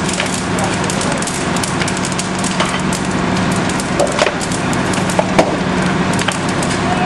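Structure fire crackling and snapping, with a couple of louder cracks about four and five and a half seconds in, over the steady hum of a fire engine's running engine.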